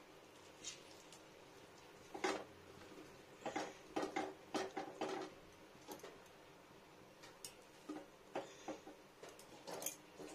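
Hands squeezing and loosening wet boiled water spinach on a metal plate: faint, irregular soft squelches and light clicks, some in quick clusters.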